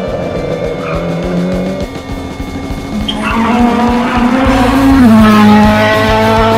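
Rally car engine running and revving, with background music coming in about halfway through.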